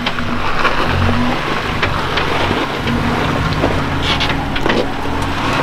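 Lifted Jeep Wrangler JK crawling slowly down a granite slab: its engine runs at low revs with a steady low drone, and the tyres give occasional sharp crunches and clicks on the rock.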